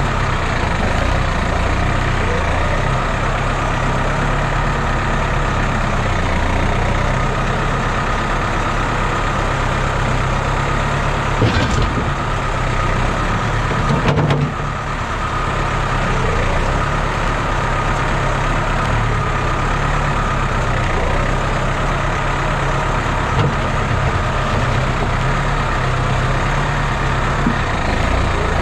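Tractor engine running steadily while the front loader works. About halfway through there are two knocks as the loader bucket tips a load of manure into a wooden trailer.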